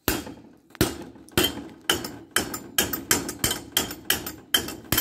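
Hammer striking metal tubing on a homemade anvil: about a dozen sharp, ringing blows, two to three a second, coming a little faster toward the end.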